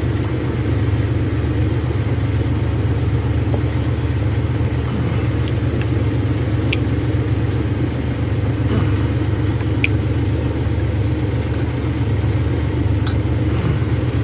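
A steady, low mechanical hum like an idling engine, with a few faint clicks over it.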